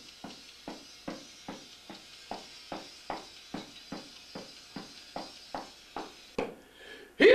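Steady metronome click track, short even clicks about two and a half a second, heard faintly. Loud music cuts in suddenly at the very end.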